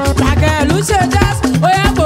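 Live West African gospel praise music: voices singing over bass and drums, with talking drums among the percussion.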